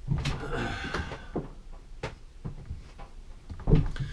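Scattered knocks and clicks of someone moving about and handling things in a workshop, with a heavier thump near the end.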